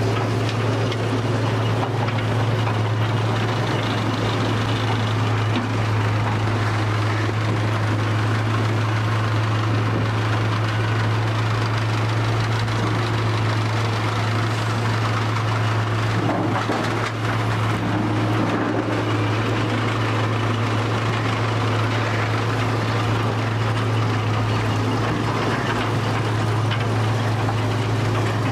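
Machinery running steadily with a strong, constant low hum and a continuous noisy rumble above it.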